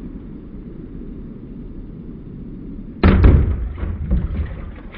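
Hot 3/4-inch stainless steel bar dropped into a plastic bucket of water: a sudden heavy splash and thud about three seconds in, followed by a second or so of irregular crackling as the hot metal is quenched.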